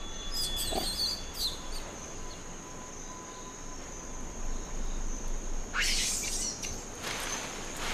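Forest ambience: a steady high insect drone, with short bird chirps about half a second and a second and a half in, and a brief harsh burst about six seconds in.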